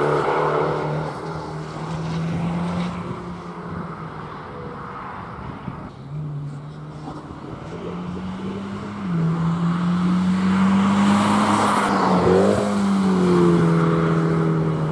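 Race car engine held at high revs: it fades as the car moves away, then another car's engine grows louder from about nine seconds in. As it comes close, the engine pitch dips briefly and comes back up around twelve seconds in.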